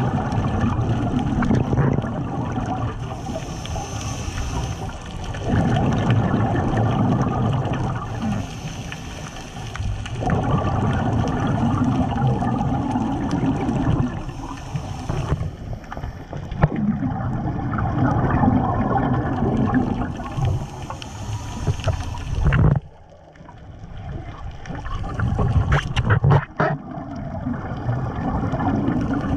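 Scuba regulator breathing underwater: a hissing inhale, then a long gurgling rush of exhaled bubbles, repeating about every five to six seconds for some five breaths.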